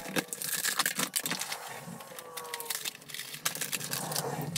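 Stiff plastic blister packaging crackling and crinkling as it is cut and pried open by hand, with a string of irregular sharp snaps and clicks.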